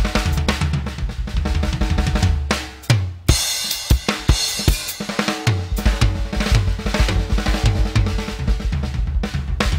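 Acoustic drum kit played solo: fast strokes across snare, toms and bass drum. About three seconds in, the playing opens into a ringing cymbal wash with only a few bass drum hits, and the full kit picks up again about two and a half seconds later.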